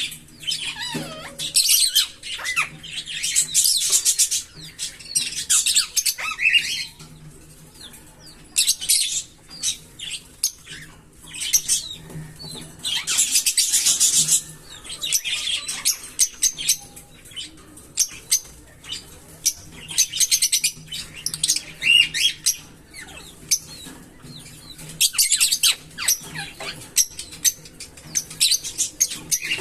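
A pair of green Fischer's lovebirds chirping. Their calls come in repeated bursts of rapid, shrill chirps, each burst a second or two long, with short pauses between.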